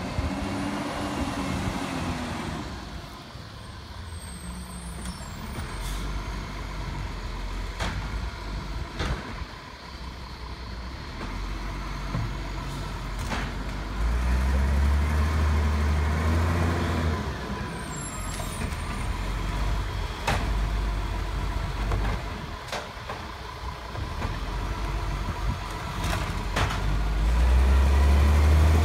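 Iveco side-loader garbage truck's diesel engine running, revving up loudly about halfway through and again near the end, with sharp knocks now and then.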